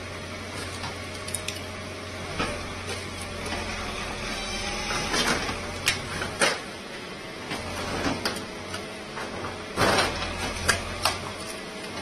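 Caterpillar backhoe loader's engine running steadily while its bucket pushes down on corrugated roof sheets, with a string of sharp cracks, scrapes and knocks as the sheets break, the loudest near the end.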